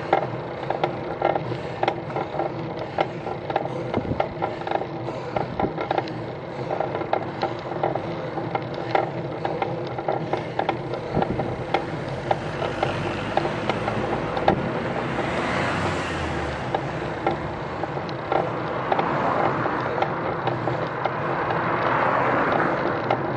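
Ride noise from a bicycle climbing a road hill: steady rattling and ticking from the bike over the tarmac, under a steady hum. A car or van passes about two-thirds of the way in, and another swells up near the end.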